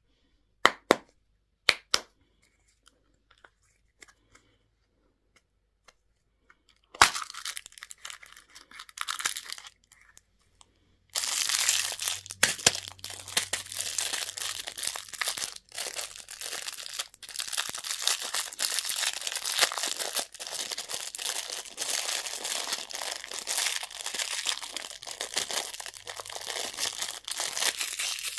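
A few sharp clicks, then a candy wrapper being crinkled and torn open close up: it starts about seven seconds in and becomes a dense, continuous crinkle from about eleven seconds on.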